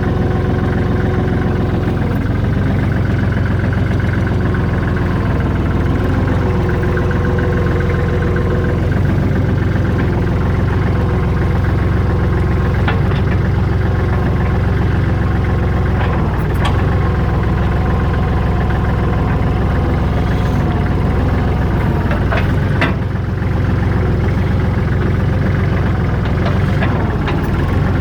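Kubota L39 tractor loader backhoe's four-cylinder diesel engine running steadily, with a few short sharp knocks scattered through the second half.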